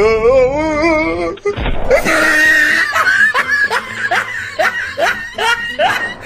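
Loud laughter, a run of short ha-ha bursts at about two to three a second, after a wavering, wobbling voice-like sound in the first second.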